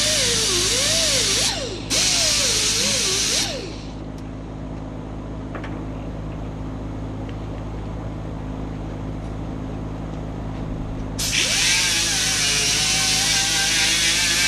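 Electric grinder grinding the metal of a chain: a loud, hissy grind with a wavering pitch. It breaks off briefly, then drops to the quieter hum of the motor spinning free for about seven seconds, and comes back loudly near the end as the wheel meets the chain again.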